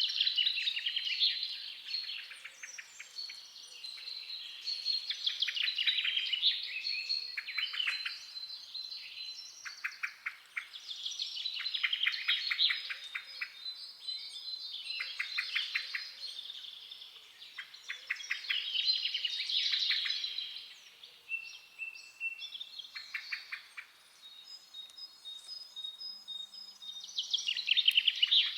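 Several songbirds singing in a forest chorus: overlapping high chirps, rapid trills and short whistled notes, rising and falling in bursts every few seconds.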